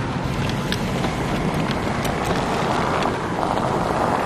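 Steady rumble of a car driving through a blizzard, heard from inside the cabin, with wind noise and a few faint ticks.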